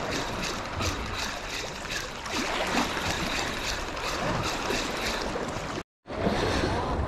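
Sea water washing over a steady rapid ticking, about four ticks a second, of a spinning reel cranked during a jig retrieve. The sound cuts out abruptly for a moment near the end.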